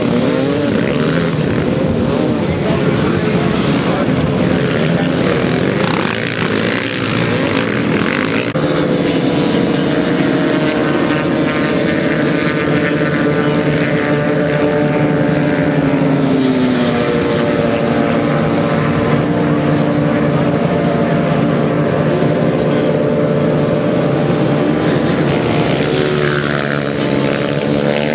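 Several dirt bike engines revving hard at racing speed, overlapping and rising and falling. About a third of the way in this gives way to a steadier high drone of engines held at high revs, with slow rises and falls in pitch.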